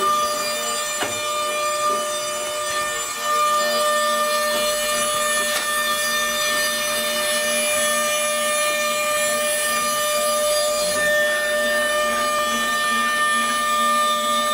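CNC router spindle running with a steady high whine while its bit carves a relief into wood, with a rough cutting noise under the whine.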